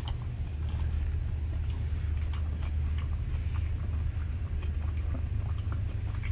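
A steady low hum with faint scattered rustles and clicks over it.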